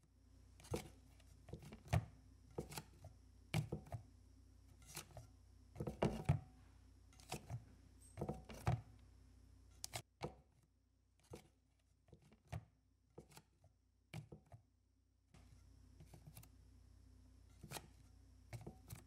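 Rubber spatula folding thick scone batter in a glass mixing bowl: irregular soft knocks and scrapes of the spatula against the bowl, roughly one a second, over a faint steady hum.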